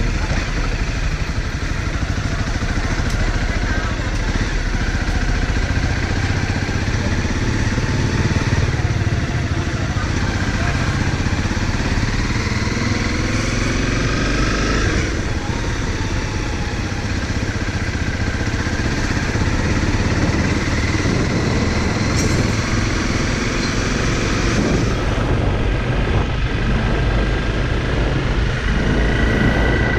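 Honda CRF motorcycle engine running while riding. Its pitch rises for a few seconds around the middle, then drops suddenly.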